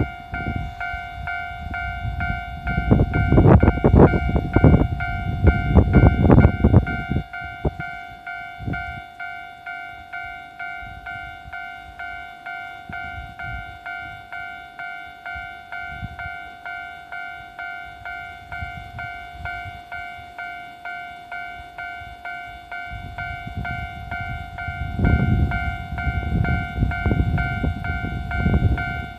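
Japanese level-crossing warning bell ringing throughout in a steady, evenly repeating two-tone ding. For the first several seconds a train of KiHa 11 diesel railcars rumbles across the crossing with rapid clacks of its wheels over the rail joints; the rumble dies away, and a similar rumble and clatter returns about 25 seconds in.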